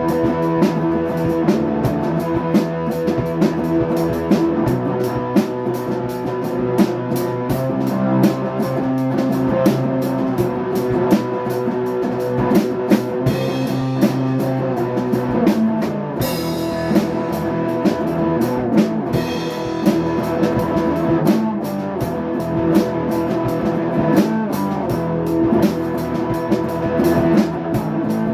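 Rock music played on drum kit and electric guitar, with a steady beat.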